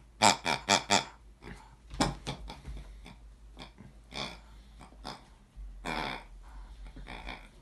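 Rubber squeeze pig toy grunting each time it is squeezed: four quick grunts in the first second, then single grunts every second or so as a dog chews it.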